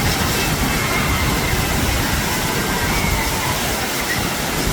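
Waterfall: a steady, even rush of falling water, with a deep rumble underneath.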